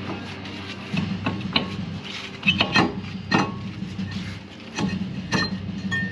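Metal tools knocking and clinking against steel parts several times, with a steady low hum underneath.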